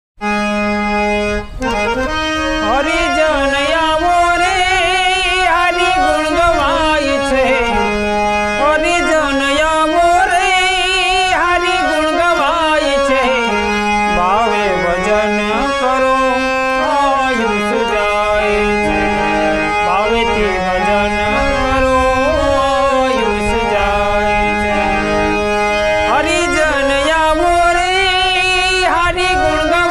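Harmonium playing a Gujarati bhajan melody over a steady held drone note.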